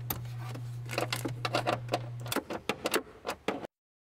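Socket ratchet clicking in quick, uneven runs with light metal rattles as a small bolt is worked loose, over a steady low hum that stops a little past two seconds in. The sound cuts off abruptly near the end.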